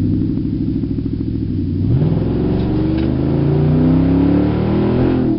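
Nissan Titan's 5.6-litre V8 running with no exhaust system, heard from inside the cab: it cruises steadily, then about two seconds in it is accelerated hard and the revs climb, falling sharply near the end.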